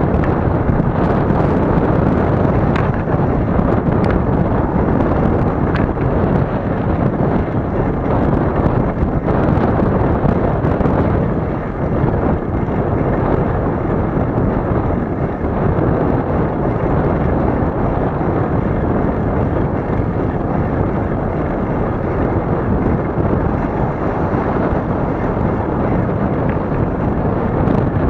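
Steady wind buffeting the microphone of a camera moving along a road, mixed with road rumble, with a few light knocks in the first several seconds.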